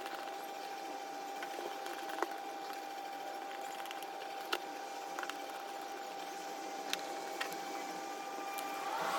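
A few light clicks from a small screwdriver working the phone's tiny motherboard screws, over a steady faint high whine and hiss.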